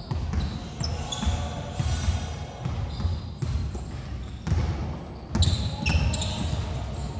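Basketball being bounced and dribbled on a hardwood gym floor, with irregular thuds of the ball and players' feet and short, high sneaker squeaks, in a large hall.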